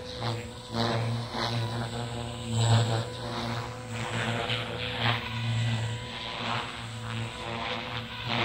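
JR Forza 450 radio-controlled helicopter in flight: a steady, pitched hum from its rotor and motor that swells and fades in loudness over and over.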